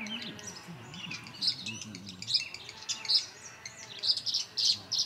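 Small songbirds chirping in short, repeated notes, sparse at first and coming faster and louder in the last second or so. The birds at the nest box are tree swallows and a sparrow contesting it.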